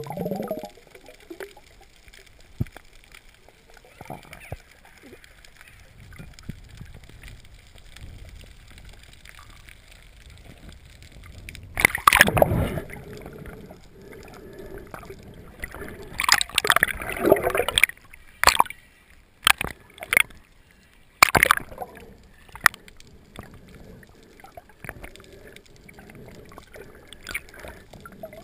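Water sloshing and gurgling around a GoPro camera underwater, muffled, with a loud splashing burst about twelve seconds in and a cluster of shorter bursts a few seconds later.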